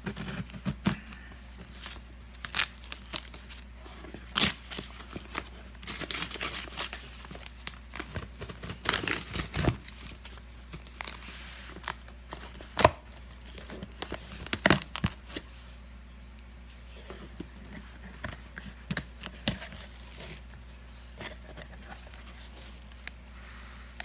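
Packing tape being picked at and torn off a cardboard box, with crackling rips and cardboard scraping in irregular bursts. The sharpest rips come in the middle, and only scattered small rustles follow near the end.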